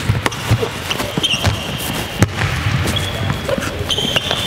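A basketball bouncing a few times on a hardwood gym floor, with sneakers squeaking on the court, over background music.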